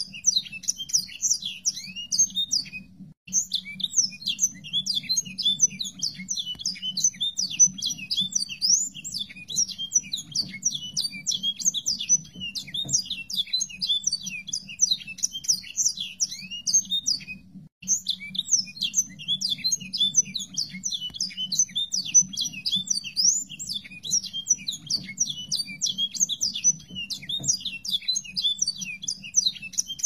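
Song of a sanger songbird: a continuous, rapid stream of high chirps and twitters. It breaks off briefly about three seconds in and again a little past halfway. A steady low hum runs underneath.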